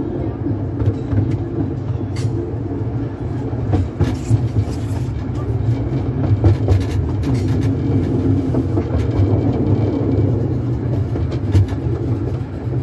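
Carriage of a miniature steam railway rolling along the track, a steady low rumble of wheels on rails with scattered sharp clicks and rattles.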